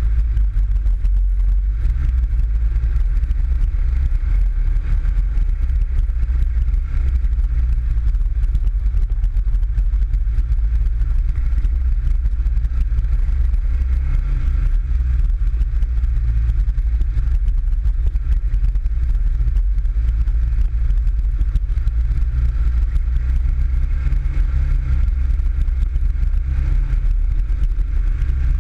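PGO 500i off-road buggy's engine running steadily as the buggy climbs a snowy dirt trail, a heavy low rumble heard from on board the buggy.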